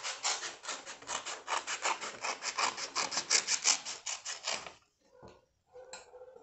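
Blunt-tipped children's scissors cutting through a folded sheet of paper: a quick, even run of snips, about six a second, that stops a little over four and a half seconds in, followed by a couple of faint clicks.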